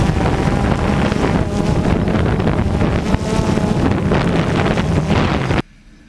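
DJI Phantom 2 quadcopter's motors and propellers running steadily while it hovers in strong wind, heard through the GoPro mounted on the drone, with heavy wind rumble on the microphone. The sound cuts off suddenly near the end.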